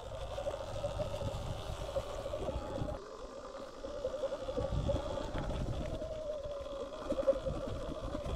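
Sur-Ron Light Bee X electric dirt bike's drivetrain whining as it rides a bumpy dirt trail, the whine wavering up and down with the throttle. Under it is a low rumbling noise that drops away briefly about three seconds in.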